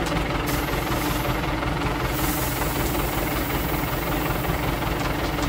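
Diesel engine of a small self-loading concrete mixer running steadily with a low, even hum. A hiss rises over it for a second or two near the start.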